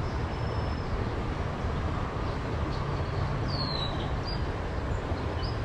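Steady low rumble of distant road traffic, with a few short, high bird chirps over it.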